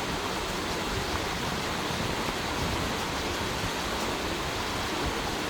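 Mountain stream running over rocks, a steady full rush of water.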